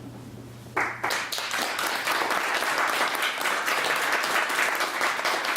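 Audience applause breaking out suddenly about a second in and carrying on as dense, steady clapping.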